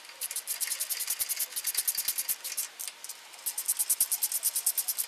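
Socket ratchet wrench clicking rapidly as bolts are run down on a tractor's PTO shaft housing. The clicking comes in two quick runs with a short pause about halfway through.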